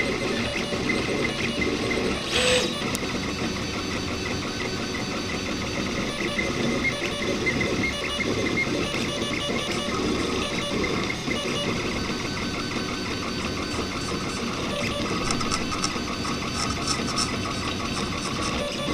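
RepRap Prusa Mendel 3D printer's stepper motors whining in constantly shifting tones as the print head moves back and forth laying down infill. A brief louder burst about two and a half seconds in.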